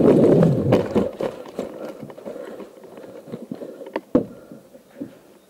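Running footsteps and gear rustling close to the microphone, loud at first and fading as the runner slows. A single sharp knock about four seconds in.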